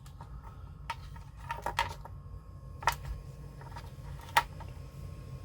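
A handful of sharp clicks and taps from small parts being handled and fitted into a plastic model hull, the loudest near the end, over a steady low hum.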